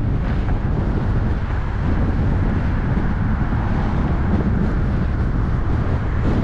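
Steady road rumble and wind rush from a car driving along, with wind buffeting the microphone.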